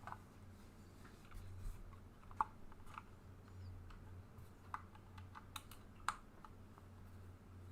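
A few scattered, isolated clicks and taps from a handbuilt mechanical keyboard being handled, over a faint steady low hum.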